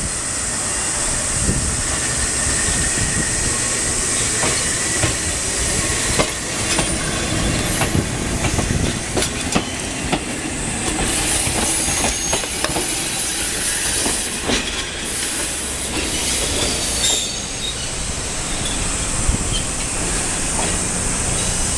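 Fukui Railway 200 series tram rolling slowly into a station. Its wheels click over rail joints and points many times in the middle of the stretch, over a steady high-pitched wheel squeal.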